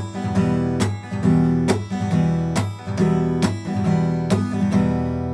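Acoustic guitar strumming an E chord at a fast tempo in a repeating pattern of down, muted chop, then down-up-down and a chop. The muted strokes give sharp percussive clicks about twice a second.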